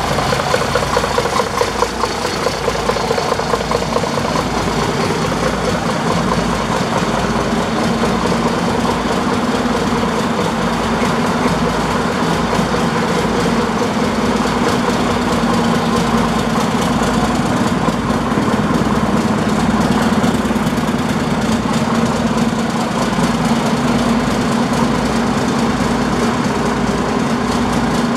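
Diesel engine of a 2004 MAN Lion's Coach R07 coach idling steadily, just started and running smoothly.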